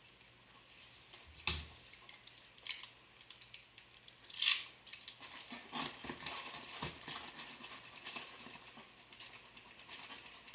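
Plastic trash-bag hovercraft skirt being handled during a tape repair, crinkling and crackling, with a sharp knock about a second and a half in and a short loud hissing burst a few seconds in.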